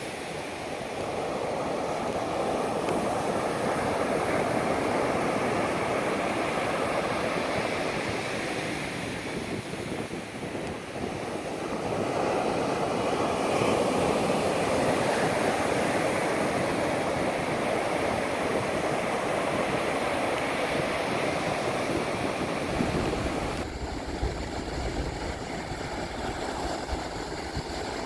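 Pacific Ocean surf washing up onto a sandy beach, swelling in two long surges with a brief lull between them. A low rumble comes in near the end.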